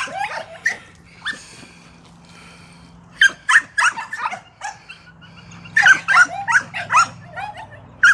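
Chained yard dogs yipping and barking in short, high, sharp calls, in two quick flurries about three and six seconds in.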